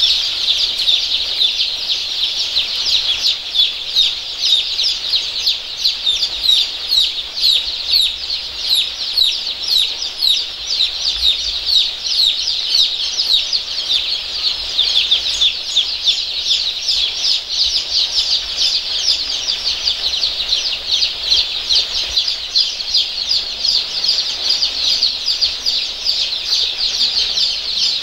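A large brood of young chicks peeping constantly, many short, high, falling peeps overlapping into one continuous chorus.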